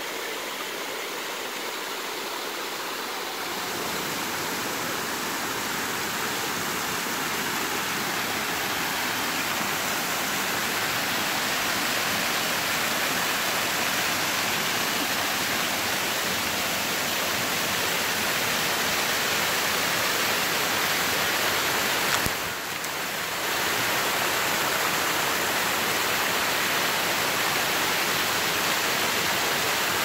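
Small waterfall spilling over rock ledges into a pool: a steady rush of falling water that grows louder a few seconds in, with a brief dip about three-quarters of the way through.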